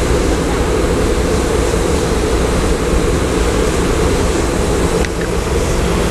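Car wash air dryer blowers running, a loud, steady rush of air.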